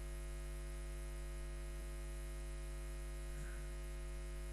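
Steady electrical mains hum: a constant low hum with a stack of evenly spaced overtones that does not change.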